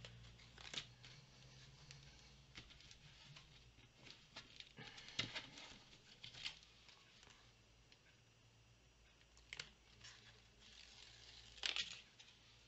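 Faint scattered rustles and light taps of paper and craft materials being handled on a tabletop, over a low steady hum, with a louder rustle near the end.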